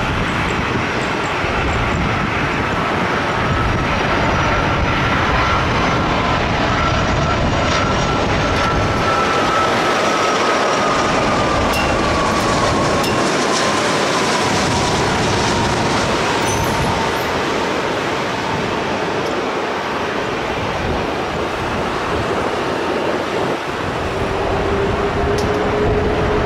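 Jet airliner passing low overhead on landing approach: a loud, steady engine rush with a whine that slides slowly down in pitch as it goes by.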